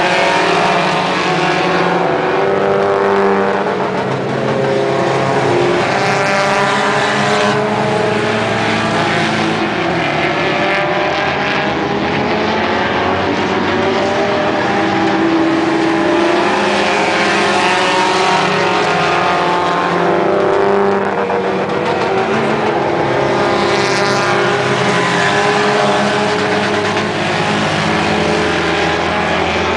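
Engines of several battered compact-sedan enduro race cars running around the track in a pack. Their pitches rise and fall as the cars pass.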